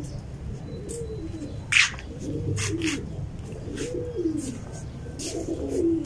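Domestic pigeons cooing, a run of low coos that rise and fall one after another, with a few short, sharp high chirps over them.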